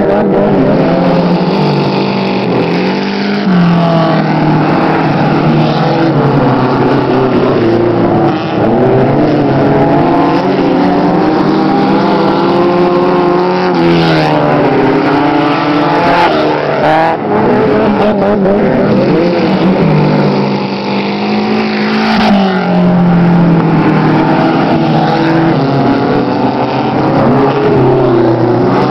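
Several dirt-track race cars' engines running hard at once, their pitch rising and falling as the cars accelerate and pass close by, one sweeping past about halfway through.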